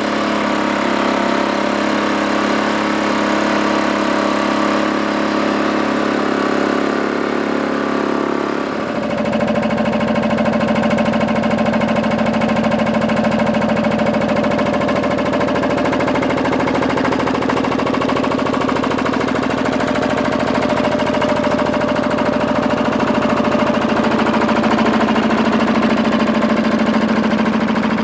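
Air-cooled single-cylinder two-stroke Sachs diesel engine of a Holder A12 tractor running steadily while the tractor pulls a cultivator through soil. About nine seconds in the sound turns fuller and lower, then stays steady.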